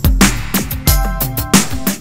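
Electronic background music with a steady, driving drum beat over synth chords and bass.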